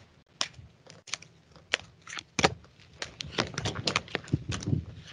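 Tarot cards being shuffled and handled: an irregular run of light clicks, busier in the second half.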